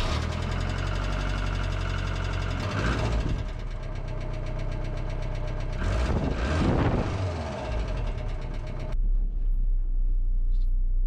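Engine running, revved up briefly twice, about three and about seven seconds in. About nine seconds in the sound cuts abruptly to a low steady hum.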